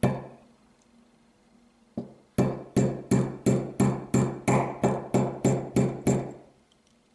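Small hammer tapping a punch to drive the extractor roll pin into a Smith & Wesson M&P pistol slide: a single tap, another about two seconds in, then a run of about a dozen quick metallic taps, about three a second, each with a short ring.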